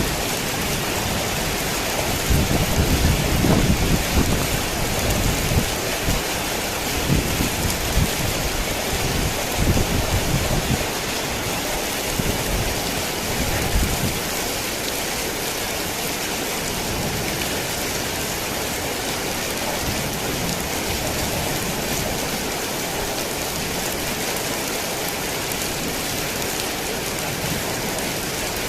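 Heavy rain pouring steadily. Low rumbles of thunder swell during the first half and die away about halfway through, leaving an even hiss.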